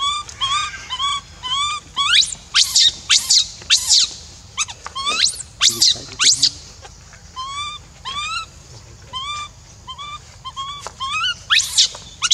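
Baby macaque crying: a run of short, repeated squeaky whimpers, broken by loud, sharply rising screeches between about two and four seconds in, again around five to six seconds, and near the end.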